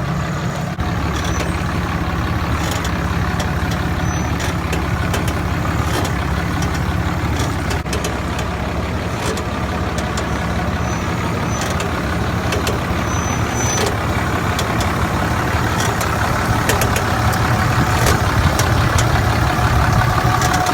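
2012 Ram 2500 pickup running steadily with a low engine and road rumble, and scattered light clicks and knocks throughout.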